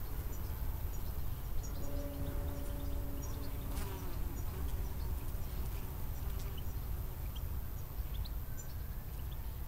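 Acoustic bass guitar played with a bow: a quiet held note with an overtone sounds for about three seconds, starting about two seconds in, then stops. Steady wind rumble on the microphone runs under it, with faint scattered high ticks.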